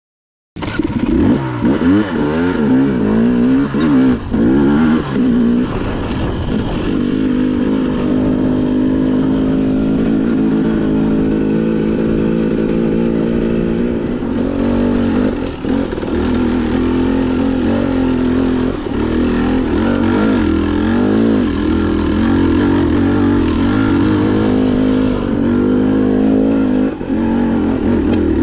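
Dirt bike engine running under varying throttle, its pitch rising and falling again and again, starting suddenly about half a second in.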